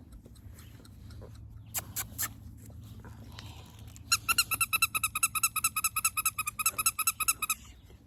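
A squeaker sounding a fast, even run of identical high squeaks, about nine a second, starting about four seconds in and lasting some three and a half seconds; a couple of faint clicks come before it.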